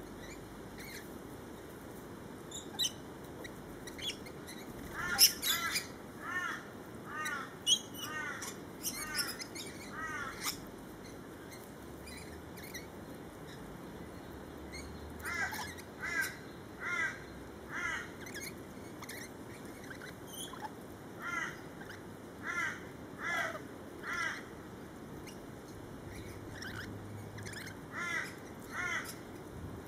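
Birds calling: bouts of short, hooked calls repeated about once a second, with sharp high chirps scattered between them.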